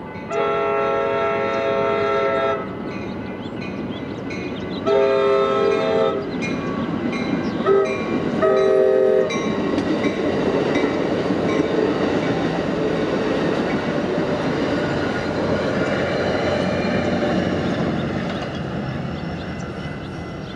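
Train horn sounding the grade-crossing signal, two long blasts, a short one and a long one, followed by the train passing with a steady rushing and clacking of wheels on the rails that fades near the end.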